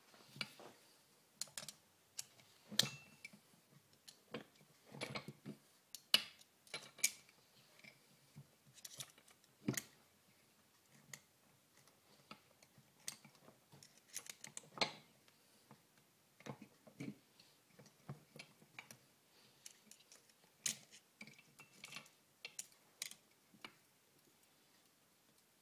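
Metal gears and shafts clicking and clinking as they are handled and fitted inside an early Shovelhead four-speed gearbox case: scattered, irregular light knocks with short pauses between them.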